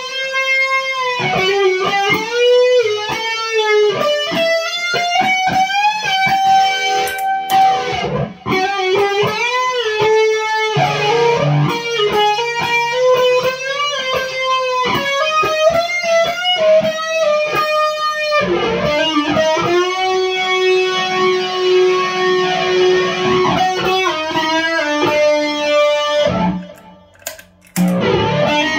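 Electric guitar, a single-coil Fender American Stratocaster through a Fender Twin Reverb turned up to 10 and a board of effects pedals, playing a lead line of sustained single notes with string bends and vibrato. The playing breaks off briefly near the end, then starts again.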